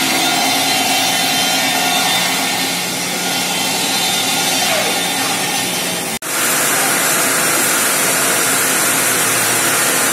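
Sawmill machinery running: a steady, loud mechanical din with several humming tones. It cuts out for an instant about six seconds in and comes back brighter and hissier.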